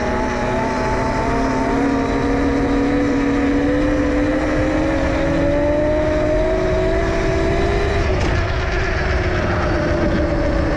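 72-volt, 5000-watt electric pit bike motor whining as the bike rides on pavement, its pitch rising steadily with speed for about eight seconds, then falling away as it slows. A low rush of wind and tyre noise runs underneath.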